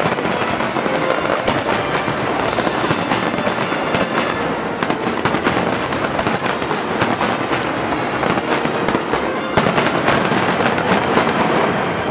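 Aerial fireworks display: shells bursting overhead in quick succession, a continuous mix of bangs and crackling, with one especially loud bang about three-quarters of the way through.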